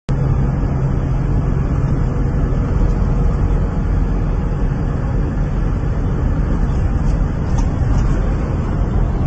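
Steady road noise inside a moving car's cabin at highway speed: a low rumble of tyres, engine and wind that never lets up.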